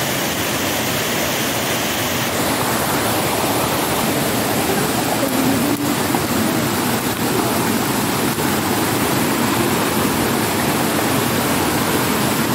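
Shallow rocky mountain stream rushing and splashing over stones: a steady, even rush of water close to the microphone.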